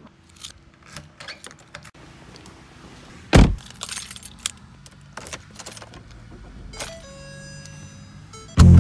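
Keys jangling and clicking, with a loud thump about three and a half seconds in like a car door shutting, then more clicks from a key fob and a car engine running at idle with a low hum near the end.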